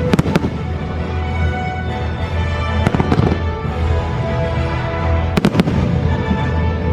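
Fireworks exploding in three quick clusters of bangs, just after the start, about three seconds in and about five and a half seconds in, over the fireworks show's music.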